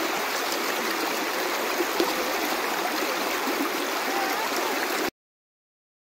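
Shallow creek running over a rocky bed, a steady rippling that cuts off suddenly about five seconds in.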